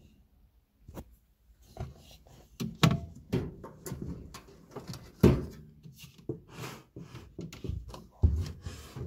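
Subwoofers being handled by hand: irregular rubbing and knocking against speaker frames and cones, with two sharper knocks about three and five seconds in and a duller thump near the end.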